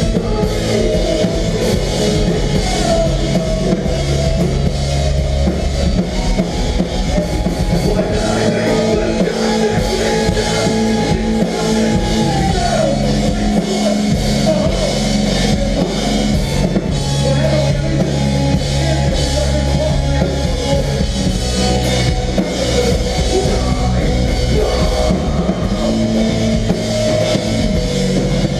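Melodic hardcore band playing live: a drum kit, distorted electric guitars and bass in a loud, continuous passage, with a guitar slide about twelve seconds in.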